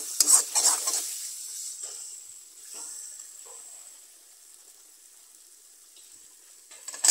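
A metal spatula scraping and knocking in a steel wok for about a second, then roselle leaves and fermented dry fish sizzling in oil, the sizzle dying down to a faint hiss. New clattering starts at the very end.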